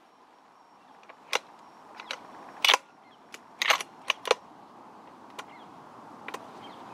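A series of about a dozen irregular sharp clicks and cracks, the loudest about two and a half and three and a half seconds in.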